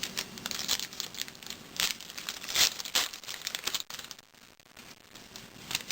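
Plastic crinkling and rustling as trading cards and their packaging are handled, in quick irregular rustles that go quiet about four seconds in and pick up again near the end.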